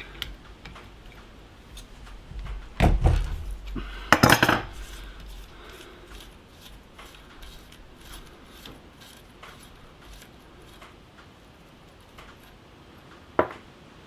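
Small metal clicks and clinks from a DT Swiss bicycle hub and tools being handled during disassembly, with two heavier knocks about three and four seconds in and one sharp knock near the end.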